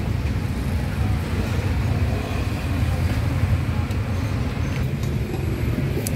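Steady low rumble of road traffic passing, with no single vehicle standing out.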